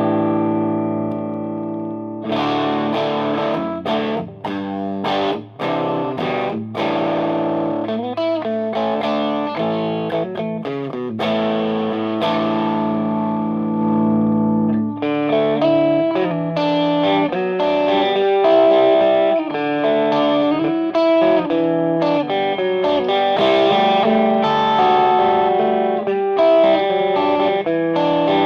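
Electric guitar played through a Frantone Hep Cat overdrive pedal into a clean amp: distorted chords and single-note phrases, some held to ring, with choppy short strikes in the first few seconds and busier playing in the second half.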